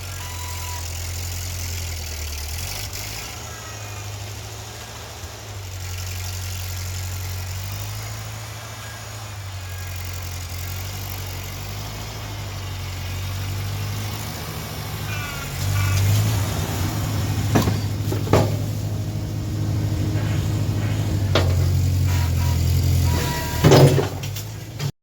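An engine running steadily, growing louder and rougher in the second half, with several sharp knocks near the end.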